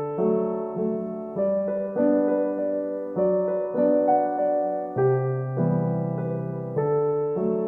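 Background music: slow, gentle piano with sustained chords changing about once a second.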